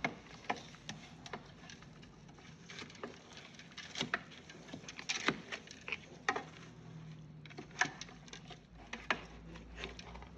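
Pork being mixed with a thick marinade of shrimp paste, herbs, peanuts and sesame seeds in a bowl: irregular soft clicks and wet slaps, a few a second.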